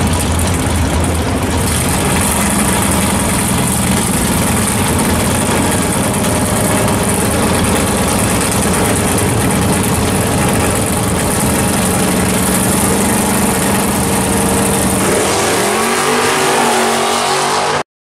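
Drag race cars' engines running loud and steady while staged at the starting line, with the engine pitch rising near the end before the sound cuts off abruptly.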